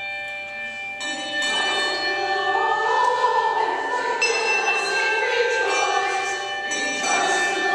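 A group of voices singing together over sustained electronic keyboard chords.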